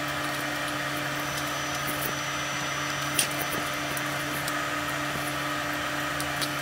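A steady machine hum, like a fan or appliance motor, with a constant low tone under an even whooshing noise. A few faint light taps sound over it.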